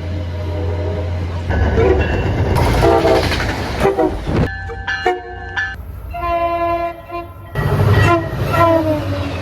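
MBTA train horns sounding in a run of short clips cut one after another, each a chord of several tones at a different pitch, with the rumble of the trains beneath.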